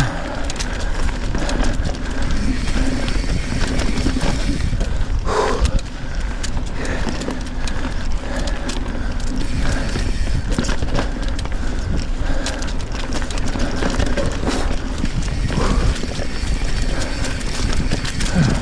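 Mountain bike ridden over a rough, sandy trail: knobby tyres rolling and the bike rattling and clicking over bumps, with steady wind rumble on the action camera's microphone.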